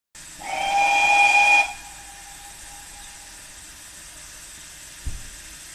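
Steam locomotive whistle giving one short departure blast of about a second and a half, fading briefly after it cuts off, as the auto train pulls out. A steady low hiss continues, with a single dull low thump near the end.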